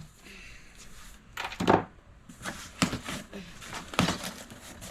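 Kit parts being handled and rummaged out of a box: a few separate knocks and rustles, the loudest a little under two seconds in.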